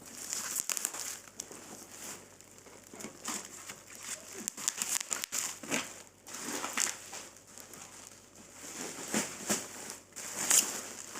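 Bubble wrap being pulled off and crumpled by hand: irregular crinkling and rustling with sharp crackles, coming in uneven bursts.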